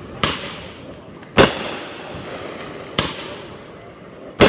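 Fireworks going off: four sharp bangs about a second and a half apart, each trailing away in a short echo, the second and last the loudest.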